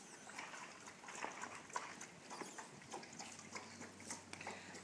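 Faint, irregular scuffs and light patters of dogs moving about on gravel.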